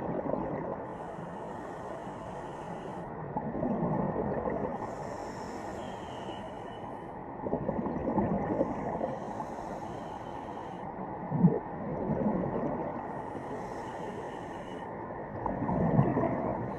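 Muffled, hollow rushing noise swelling and fading about every four seconds, with a short thump near the middle and a faint hiss that comes and goes. It is the 'strange sound' said to have been recorded in connection with the crash, which some people claim is human voices.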